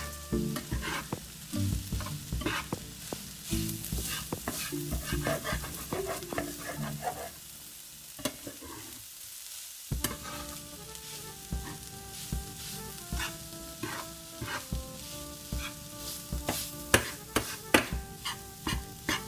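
A spoon scraping and clicking against a pan as ground chicken with taco seasoning and water is stirred, with sizzling underneath. The knocks come irregularly, a few sharper ones near the end.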